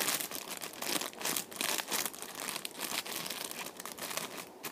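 Clear plastic bag holding a homemade squishy, crinkling as it is handled, in rapid irregular crackles that ease off just before the end.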